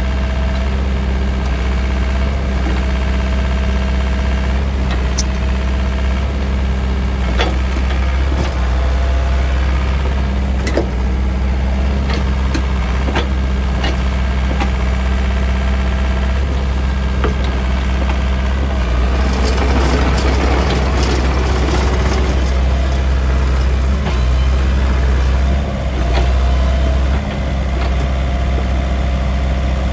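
Takeuchi TB180FR compact excavator's diesel engine running steadily, with occasional short clanks. About two-thirds of the way through, a louder rattling noise joins in as the machine travels on its rubber tracks.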